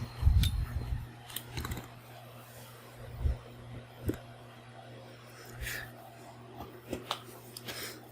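Scattered light clicks and knocks of tools and small metal hardware being handled, about eight spread irregularly, over a steady low hum.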